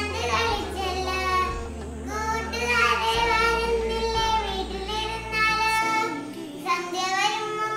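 A young girl singing, with long held notes.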